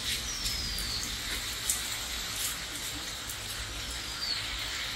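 Rain falling steadily as an even hiss, with scattered drops tapping.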